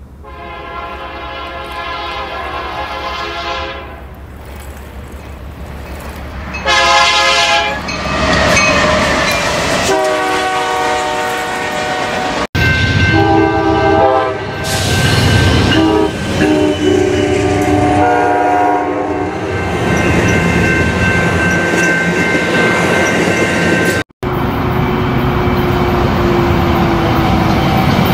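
Train horn sounding in repeated blasts, some short and some held for several seconds, over the steady rumble and clatter of a moving train. The sound cuts out abruptly twice, about 12 and 24 seconds in.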